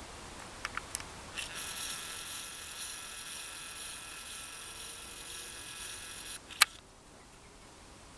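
A camcorder's zoom motor whines steadily while the lens zooms out, starting about a second and a half in and stopping abruptly some five seconds later. There are a few light handling clicks before it and a sharp click just after it stops.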